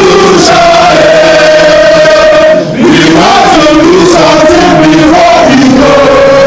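Crowd of protesters singing a chant together in unison, very loud, with long held notes and a brief pause a little before halfway.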